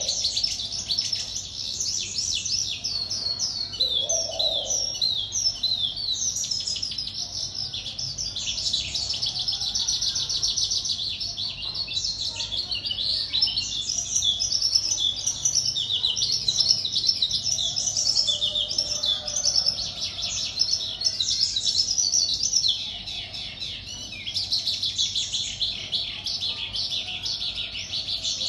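A caged wild-caught songbird, a little over a month in the cage, singing a long unbroken run of rapid, high chirping and warbled notes, with a brief lull about two-thirds of the way through.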